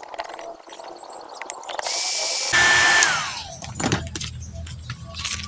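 A small electric motor, a handheld power tool, switches on and runs loudly for about a second with a steady high whine, then shuts off and winds down with a falling whine. Light ticking and tapping from work on the circuit board is heard around it.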